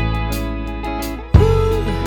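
Background music led by guitar, with a steady beat. Near the end a voice sings 'ooh'.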